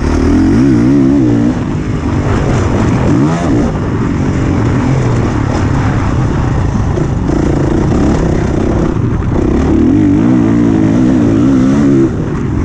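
Honda CRF450R's single-cylinder four-stroke engine running hard on a motocross track, its revs rising and falling quickly with the throttle. The revs drop briefly about a second and a half in and again near the end.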